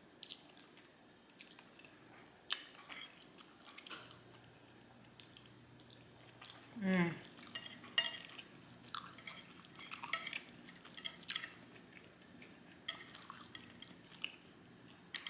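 Close-miked eating sounds of black bean noodles: wet mouth clicks and smacks while chewing, with utensil taps and scrapes on a plate. About seven seconds in there is a brief low voiced sound from the eater, falling in pitch.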